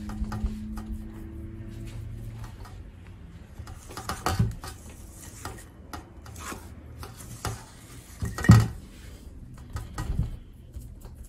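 A spoon scraping and knocking against a stainless steel mixing bowl and a metal baking tray as thick semolina dough is scooped out and dropped in. The clinks come at irregular moments, the loudest about eight and a half seconds in.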